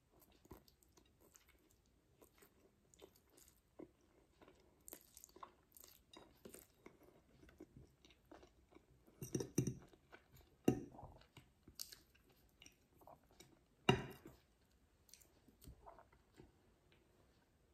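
Close-miked eating: a person chewing a mouthful of spaghetti, with small wet mouth clicks throughout. Three louder sharp knocks stand out in the second half.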